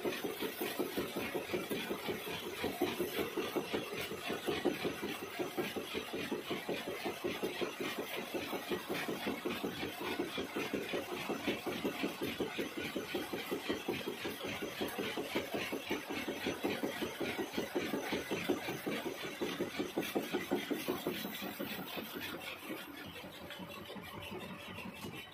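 Engine lathe turning a steel bevel pinion blank, the cutting tool facing it and throwing off curling blue chips: a steady machining sound with a fast, even pulsing. It eases off over the last few seconds.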